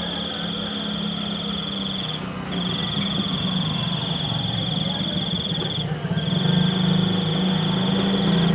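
A high, rapidly pulsing insect-like trill, like a cricket's, in long phrases of two to three seconds with short breaks between them, over a low steady hum.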